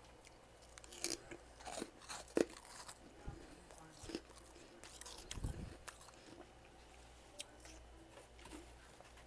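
Freezer frost being bitten and chewed close to the microphone: irregular crisp crunches, thickest in the first few seconds, with a duller low thump about halfway through.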